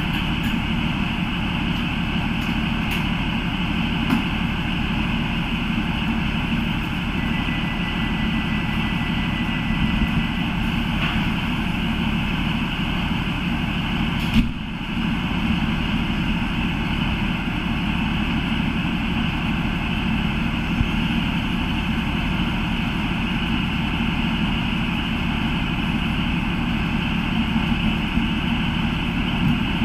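Class 153 diesel railcar's Cummins engine idling steadily, with a single sharp knock about halfway through.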